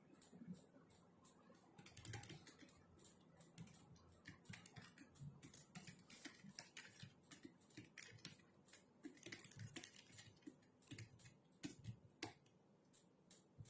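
Typing on a computer keyboard: soft key clicks in quick runs with brief pauses, and one sharper key click about twelve seconds in.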